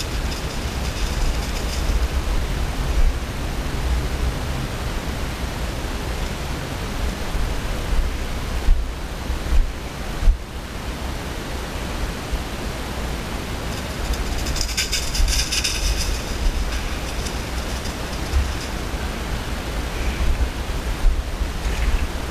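Wind buffeting the microphone of a handheld camera outdoors, a steady rumbling hiss, with a few sharp bumps about nine and ten seconds in and a brief high-pitched chirping sound around the middle.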